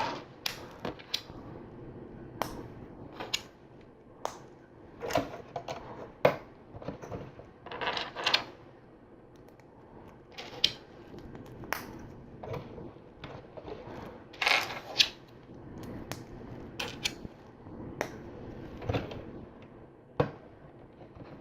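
Plastic LEGO bricks and plates clicking as they are handled and pressed together: scattered sharp clicks, with a few longer rattling spells, the loudest about fifteen seconds in.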